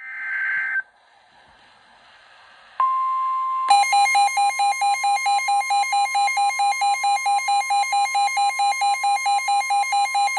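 NOAA Weather Radio emergency alert: a brief burst of SAME data tones, then the steady 1050 Hz warning alarm tone starts. About a second later a loud electronic alarm beeping joins it, pulsing about four times a second, which marks a severe thunderstorm warning.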